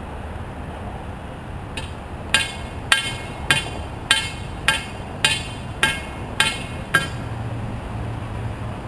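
Hammer blows, about ten evenly paced strikes a little under two a second, each with a short ringing clink, as a wooden skate box is repaired.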